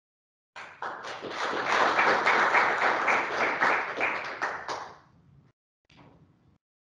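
Audience applauding, starting about half a second in, building quickly and dying away after about four seconds.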